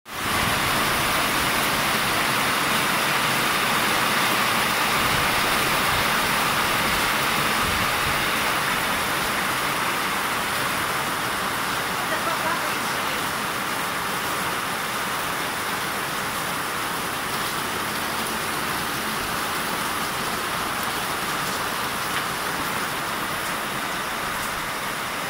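Heavy thunderstorm downpour: a steady hiss of pouring rain, easing slightly toward the end.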